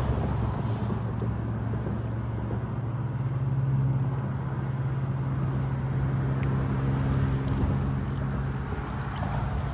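Steady low hum of a running engine, swelling slightly about four seconds in.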